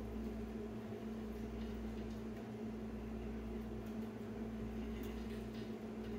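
Kitchen range hood fan running with a steady hum, with a few faint clicks of a spoon stirring in a metal pot.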